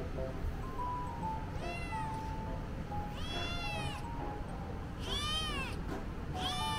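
Silver tabby American Shorthair kitten meowing four times, about a second and a half apart, each call rising and then falling in pitch. They are the frightened meows of a kitten held at a counter.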